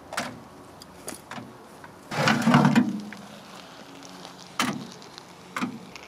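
A few sharp knocks and clatters, with one louder, longer scraping clunk about two seconds in, as the burnt microwave oven and the smoking cordless drill inside it are handled.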